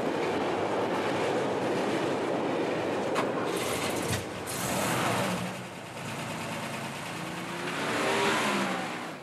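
Fire engine running under way, a dense rushing engine and road noise, with the engine revving up and down about eight seconds in.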